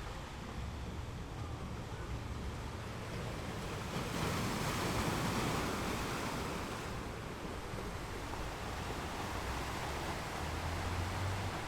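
Ocean waves breaking on rocks: a steady surf wash with one wave crashing in about four seconds in and hissing away over the next few seconds, over a low rumble.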